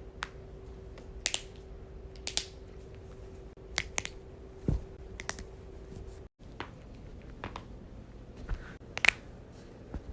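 Joints being cracked: about a dozen sharp pops at irregular intervals, with the loudest near the end.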